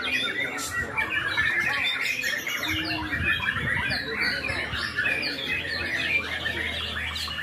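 White-rumped shamas singing together: a dense, unbroken overlap of rapid chirps, whistles and trills.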